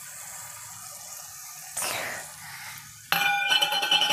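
Chopped capsicum and tomatoes frying with a faint steady sizzle in a steel pan, with a brief swish just under two seconds in. About three seconds in, a spatula starts stirring the vegetables, scraping loudly against the steel pan, which rings.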